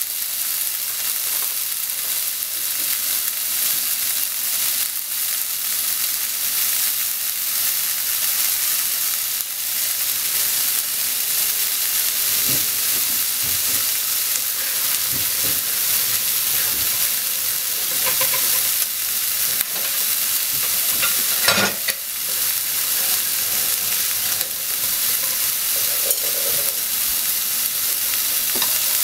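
Sliced ham sizzling as it fries in a frying pan: a steady high hiss with a few small pops. The sharpest pop comes about two-thirds of the way through.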